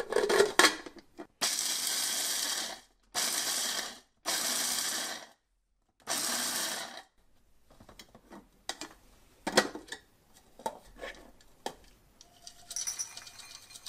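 Philips HR2505 Multichopper's 300-watt motor run in four short pulses, each about a second long, chopping roasted cashews with the regular chopper blade. Afterwards come scattered clicks and knocks of the plastic bowl and parts being handled, and near the end a soft rustle as the ground nuts are tipped out.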